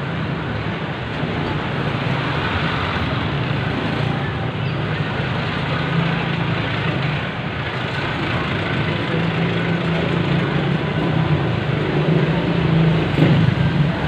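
Steady city street traffic: cars and motorcycles running past close by, a low engine hum under a constant wash of road noise that grows a little louder in the second half.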